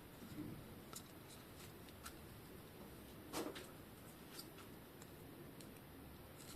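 Faint, scattered clicks and light taps of bicycle headset parts and tools being handled on a workbench, with one louder tap a little past halfway.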